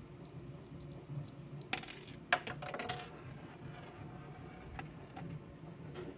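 A small steel hex key clattering down onto a hard surface about two seconds in: a quick cluster of metallic clicks and rattles with a brief ring. A couple of faint clicks follow, over a low steady background hum.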